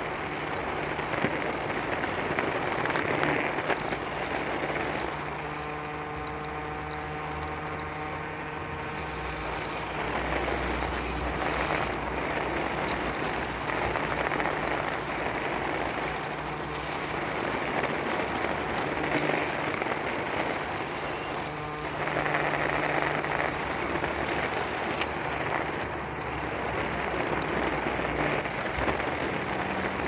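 Nikko Psycho Gyro RC stunt car's electric motors and wheels running over brick paving: a continuous rough hiss that rises and falls. A steady hum made of several tones joins for a few seconds about five seconds in.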